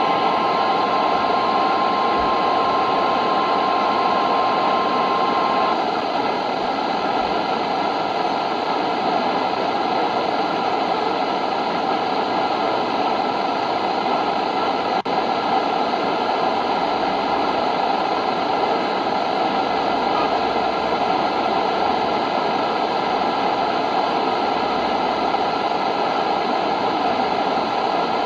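Steady hiss of radio static between broadcast alert messages, with a steady high-pitched tone underneath that stops about six seconds in. The hiss briefly drops out about fifteen seconds in.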